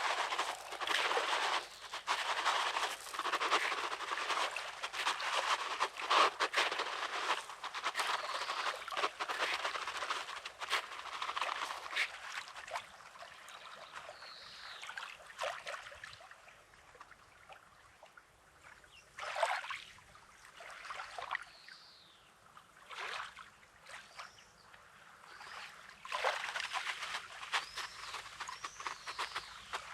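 Small sea waves washing over a pebbly shore, with trickling and crackling as the water runs back through the stones. The water is busy for the first dozen seconds, then settles into single wave swishes about every few seconds.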